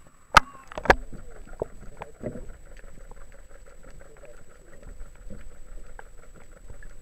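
Action camera dipped into the sea: two sharp splashes against its housing about half a second apart, then muffled underwater sound with a fast, even ticking.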